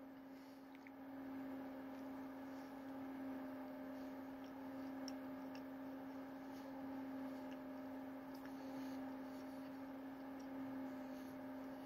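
A steady low electrical hum with a few faint soft clicks of a man chewing a mouthful of burger.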